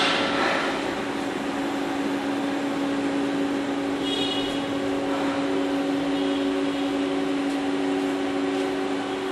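Haas SL-30T CNC lathe running: a steady machine hum with a constant low tone. There is a short hiss at the start and a brief high chirp about four seconds in.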